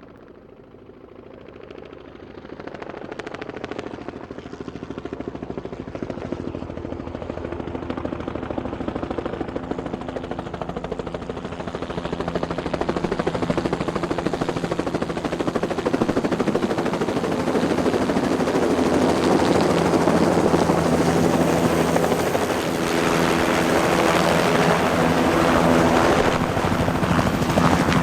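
Air ambulance helicopter approaching, its rotor chop growing steadily louder over the first half and then holding at full loudness.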